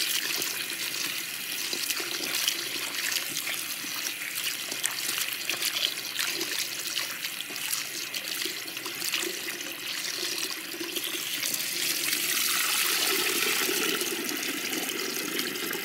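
Tap water running into a stainless steel bowl of cut potato sticks while a hand swishes them around, rinsing off the starch, with small splashes and knocks throughout. Near the end the water is poured off the bowl into the sink in a steadier, louder rush.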